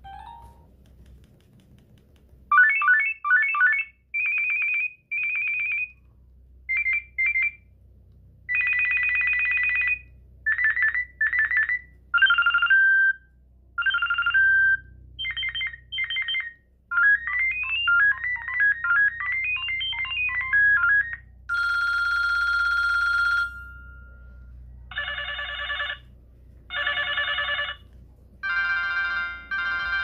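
Kyocera DuraXT flip phone playing short previews of its preloaded ringers through its speaker, one after another with brief gaps: simple electronic beeps and trills from the single-tone alerts, a rising and falling melodic run, and one held tone.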